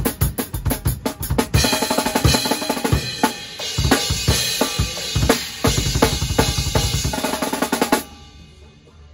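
Acoustic drum kit played fast: rapid bass drum and snare hits with crashing cymbals ringing over them, until the playing stops abruptly about eight seconds in.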